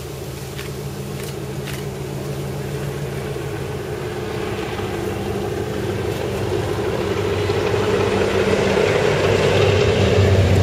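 DF11G diesel locomotive's engine running steadily under load, its low drone growing louder as it approaches, with the rushing noise of the passenger carriages' wheels on the rails building over the last few seconds.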